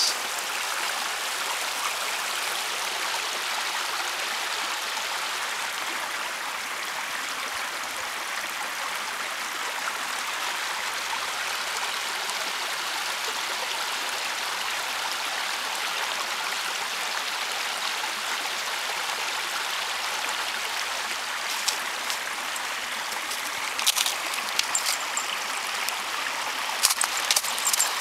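Small woodland waterfall and stream, open water not yet frozen over, rushing steadily over rocks. A few light clicks come near the end.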